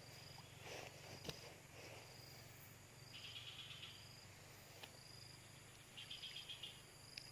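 Faint insects chirping: a short high note repeating about once a second, with two brief pulsed trills, over a faint low hum.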